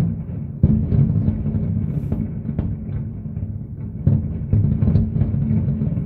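A distant fireworks barrage: a rapid, unbroken run of low booms and bangs over a steady rumble. Louder bursts come about half a second in and again around four and five seconds in.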